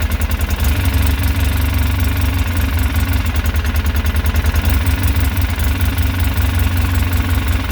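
Polaris Ranger 6x6's 800 cc twin-cylinder engine idling with a steady pulsing beat, its note changing as the suspect fuel injector is worked on. The random misfire behind it is put down to a failing injector assembly.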